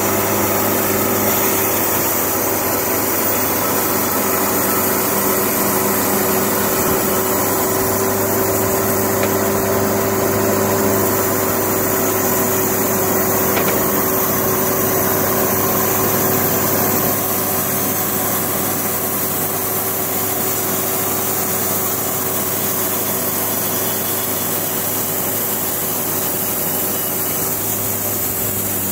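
Wood-Mizer LT70 band sawmill sawing a squared teak log: a steady machine hum under the hiss of the band blade cutting and the sawdust blowing out. The sound drops a little about two-thirds of the way through.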